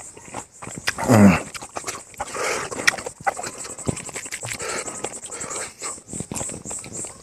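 Close-up eating sounds: chewing and lip smacking while fingers work rice and pork on a banana leaf. A high insect call pulses steadily behind, and there is a brief low grunt about a second in.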